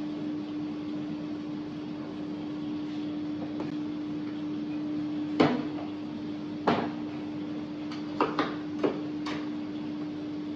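Steady electric hum of kitchen equipment, with a handful of sharp knocks and clatters from about halfway through, the first the loudest.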